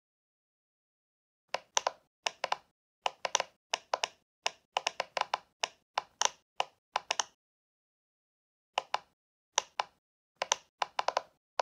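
A run of quick, uneven light taps or clicks, like typing. They come in a long burst, stop for about two seconds, then start again near the end.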